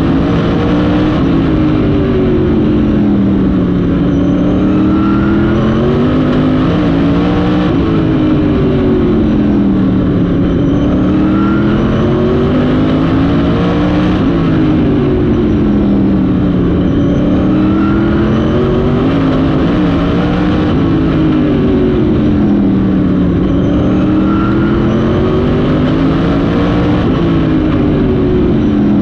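Tour Modified race car's V8 engine at racing speed, heard from inside the cockpit. Its pitch climbs on each straight and falls off into each turn in a regular cycle, peaking about every six and a half seconds.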